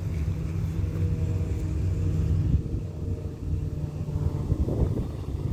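Motor vehicle engines idling with a steady low rumble.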